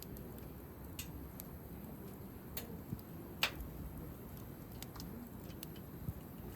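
Wood campfire crackling: irregular sharp pops and snaps, the loudest about three and a half seconds in.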